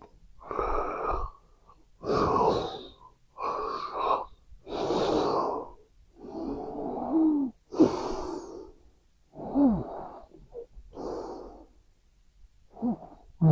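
A sleeping person breathing in about nine quick, noisy, wheezy breaths, roughly one every second and a half. A few of them end in a short falling whistle.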